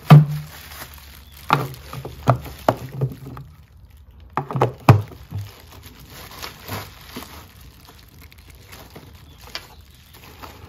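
Knocks and clicks from a plastic headlight housing being handled and its round plastic HID bulb cover being twisted into place: a sharp knock at the start, several more in the first five seconds, then faint ticking and scraping.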